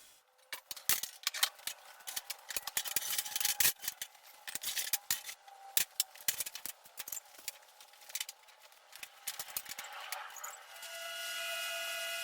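Irregular scraping, clicking and tapping on steel hoops as they are handled and marked, then near the end a steady high whine starts, typical of an angle grinder running up to speed.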